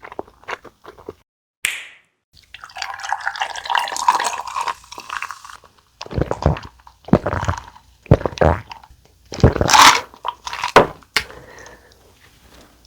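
Close-miked eating of boneless fried chicken coated in spicy seasoned sauce: wet, sticky crackling chewing, then several louder separate bites and chews.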